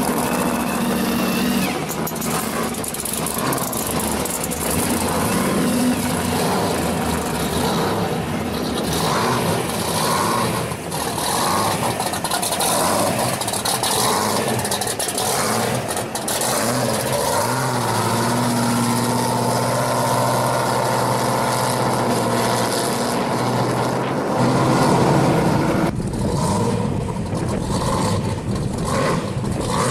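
Pro street V8 engines idling and revving in short throttle blips as the cars pull past, among them a supercharged 1970 Camaro with its blower sticking up through the hood.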